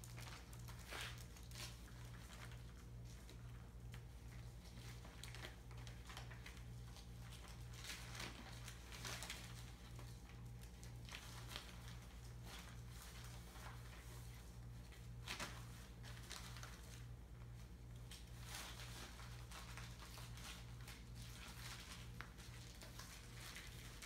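Quiet room with faint scattered rustling and light taps, over a steady low hum that throbs about twice a second.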